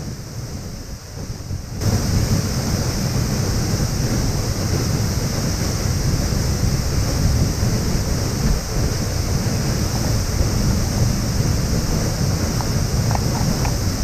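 Steady rushing noise of a large waterfall, which gets abruptly louder about two seconds in and then holds steady.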